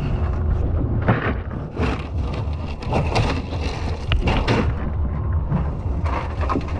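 Steady low rumble of wind buffeting the microphone, with several sharp knocks and thumps spread through it.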